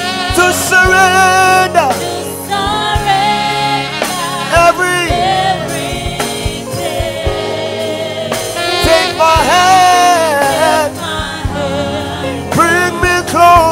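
Live gospel worship song: several voices singing long, sliding phrases over a band with steady held low notes and drum beats.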